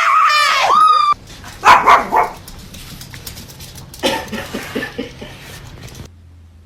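A dog giving a long, high, wavering howl that bends in pitch, then two loud barks, then a run of softer yips.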